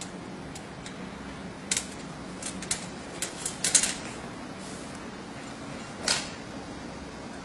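Scattered light clicks and taps from handling a compound bow held at full draw and a tape measure. A cluster comes about two to four seconds in and one more about six seconds in, over a low steady hum.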